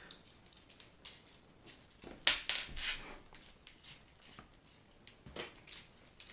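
Allen key working the small screws of a red dot sight's canted mount, and the metal mount pieces being handled: scattered light clicks and scrapes, the loudest cluster a little past two seconds in.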